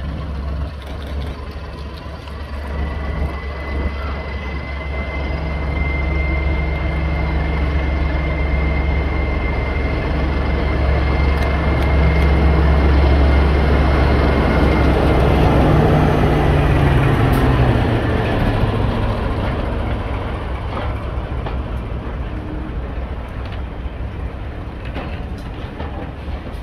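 BR Class 14 diesel-hydraulic locomotive running in slowly along the platform, its engine drone building to loudest as it passes about halfway, then falling in pitch and fading as the coaches roll by. A thin, steady high whine sounds along with the approach.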